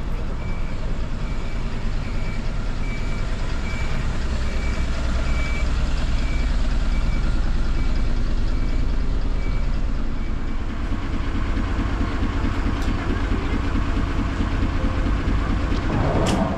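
A bus engine running with a steady low rumble, heard from the front of the bus, while a short electronic beep repeats about one and a half times a second and stops about ten seconds in. A brief louder noise comes near the end.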